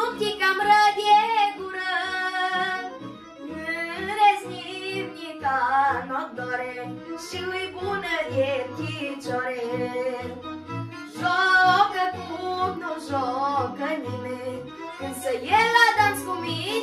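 A boy singing a Romanian folk song in a high voice, the melody bending and ornamented, over instrumental accompaniment with a regular bass pattern.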